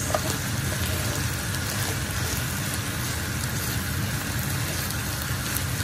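Ground beef with peppers and onions sizzling in a frying pan while being stirred with a wooden spatula, over a steady low hum.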